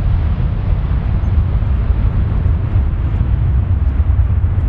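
Twin-engine widebody jet airliner taking off, its engines at takeoff power giving a deep, steady rumble.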